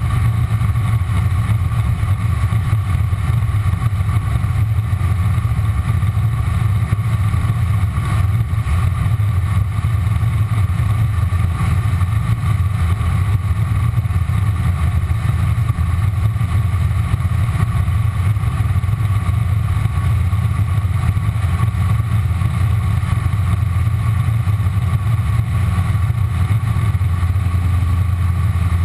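Ford engine of a V-drive inboard boat running steadily at an even speed, a deep low-pitched engine sound with no revving or change in pitch.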